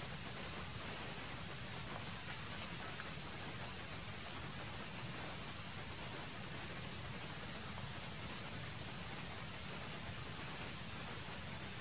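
Steady insect chorus: a continuous high-pitched drone over an even hiss.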